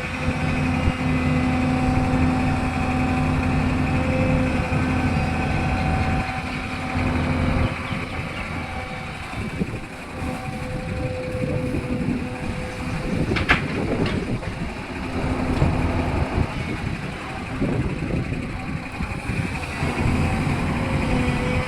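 Excavator's diesel engine working with a steady whine over it. It runs evenly for the first several seconds, then goes rougher and a little quieter, with one sharp clank about 13 seconds in.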